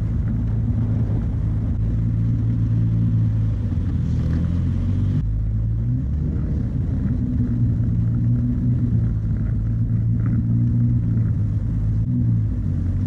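Toyota Supra's 2JZ-GTE turbocharged inline-six running as the car rolls slowly. The low engine note is steady, shifting slightly in pitch about halfway through.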